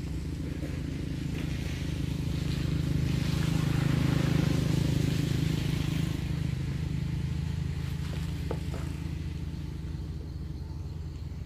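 Motor vehicle engine running, a steady low drone that grows louder a few seconds in and then fades as it passes, with a few faint clicks later on.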